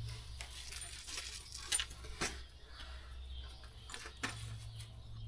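A few faint, separate metallic clinks and taps, as of tools being handled, over a low steady hum.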